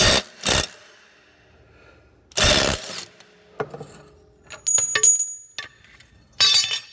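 Milwaukee M18 Fuel 2753 cordless 1/4-inch hex impact driver hammering in four short bursts, two brief ones at the start, a longer one about two and a half seconds in and one near the end, working a grade 10.9 track bar bolt through a socket adapter and wobble extension. Between the bursts, metal socket and extension parts clink and ring.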